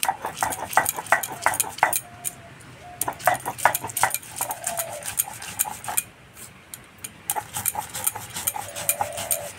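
Stone roller of a sil-nora grinding stone rocked and pushed over the stone slab, crushing mustard seeds, poppy seeds and green chillies into a paste. A quick run of sharp stone-on-stone clacks with gritty crunching, about four a second, comes in spells with short pauses.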